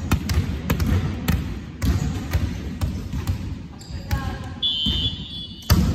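Volleyballs bouncing on a wooden sports-hall floor and being hit, a string of sharp thuds with some echo from the hall, under players' voices. A brief high squeal sounds about four and a half seconds in.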